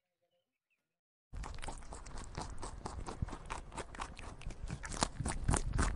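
A koala chewing eucalyptus leaves close up: a rapid, dense run of crunching and tearing clicks that starts abruptly a little over a second in, after near silence.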